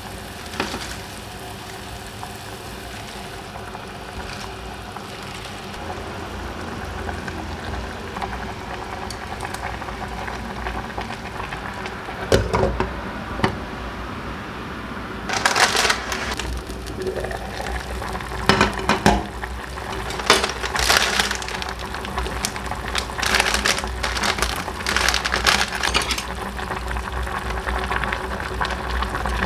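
Kimchi stew being cooked in a pot on the stove: a steady cooking hiss with a low hum, then from about twelve seconds in a couple of utensil knocks and several short, louder noisy bursts of kitchen clatter.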